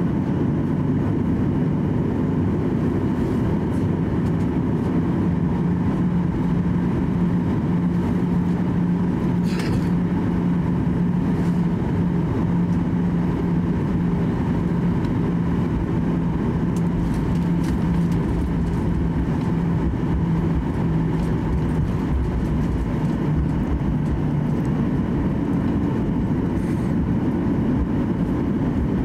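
Cabin noise of a Boeing 737-800 taxiing at low thrust: a steady drone and low rumble from its CFM56-7B engines and rolling airframe, with a humming tone that fades out a few seconds before the end.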